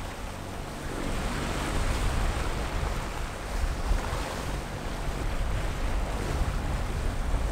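Rough open-sea waves and the boat's wake rushing and breaking, with wind buffeting the microphone as a heavy, uneven rumble.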